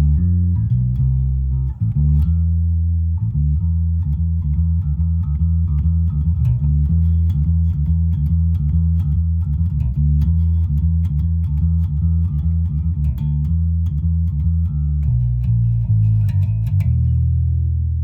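Music Man StingRay electric bass played through a Hartke Kickback KB15 combo amp, a continuous loud run of plucked notes with a short break about two seconds in.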